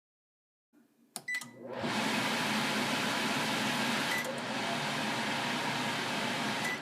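Sharp Carousel over-the-range microwave: clicks and a short button beep, then its fan starts with a loud steady whoosh. The fan sound changes slightly at another beep about midway, and a last beep near the end comes as the fan winds down.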